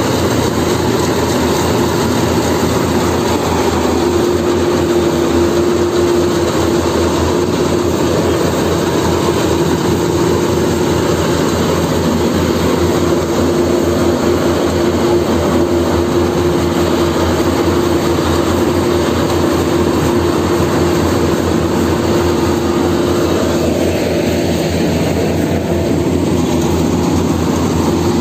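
Yanmar AW70GV rice combine harvester running steadily while it cuts and threshes standing rice, its engine and machinery giving a loud, even drone with a constant hum.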